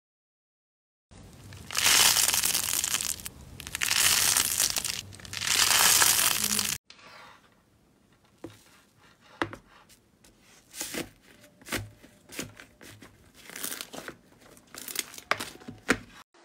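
Slime being handled by hand: loud, dense crackling in three long swells, cut off suddenly about seven seconds in. Then quieter squishing, with scattered sharp pops and clicks.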